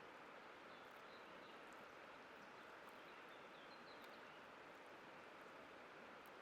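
Faint, steady rush of a white-water river, with a few brief, faint high bird chirps over it.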